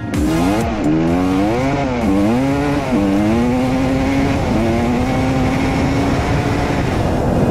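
1992 Suzuki RM250 two-stroke single-cylinder engine under way, revving up and dropping back several times in the first three seconds as it is run through the gears, then holding a steady pitch at cruising speed. It is running with its exhaust power valve freshly rebuilt and readjusted.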